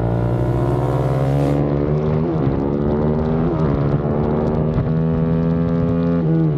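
KTM supermoto engine under hard acceleration, its pitch climbing through the gears with a short dip at each of three upshifts.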